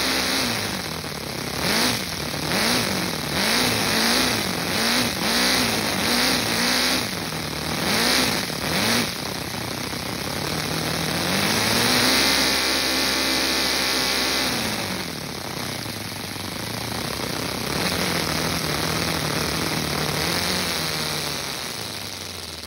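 LEGO vacuum engine, an inline-four with square-head valves, being revved: about eight quick blips in the first nine seconds, then a long climb that is held for a couple of seconds and eased back to a steadier, lower run that slows near the end.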